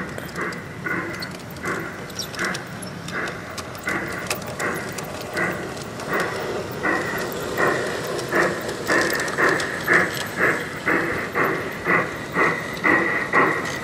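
Garden-railway model steam train running with a rhythmic chuffing beat that quickens and grows louder as the headlit locomotive approaches.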